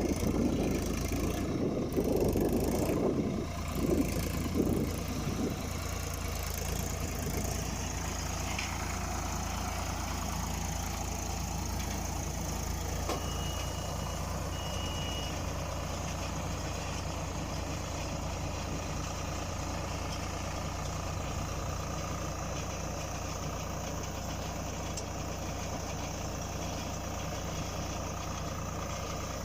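Swaraj 744 FE tractor's three-cylinder diesel engine running steadily, louder and uneven for the first few seconds, then even. Two short high beeps sound about thirteen seconds in.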